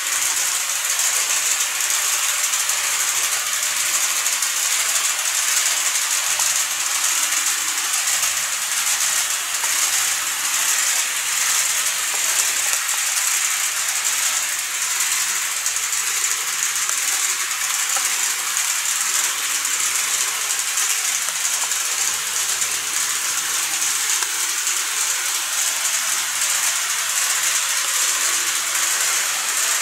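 KATO E531-series model train running along its track: a steady hiss and rattle of the wheels and motor on the rails.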